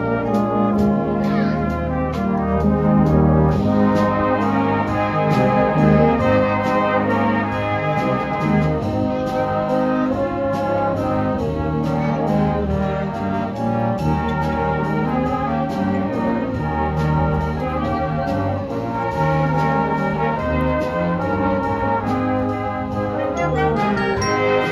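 Brass band playing, its trombone, tubas and smaller valved brass sounding several parts together in full, continuous chords that keep moving from note to note.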